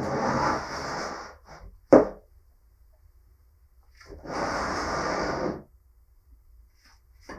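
Restored bench vise's movable jaw being slid in and out: scraping strokes about a second and a half long, one near the start and one about four seconds in, with a sharp knock about two seconds in.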